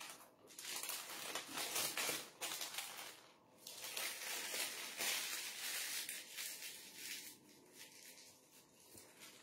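Butter paper (greaseproof paper) crinkling and rustling as it is rolled and folded by hand around a pita roll. It comes in two long stretches with a short break after about three seconds, then grows fainter in the last few seconds.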